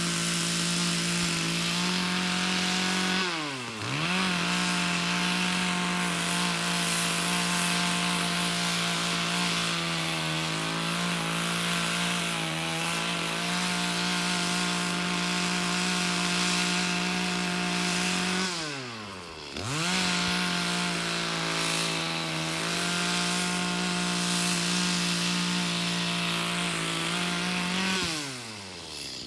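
Two-stroke chainsaw running at full throttle while cutting logs. Twice the throttle is let off and the engine pitch falls sharply, then climbs back to a steady high whine. Near the end it drops away toward idle.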